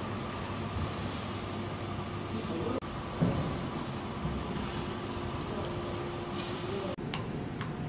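Horizontal valve test bench's motor and chain drive running, a steady high-pitched whine over a low hum; after a break near the end, faint rapid ticking.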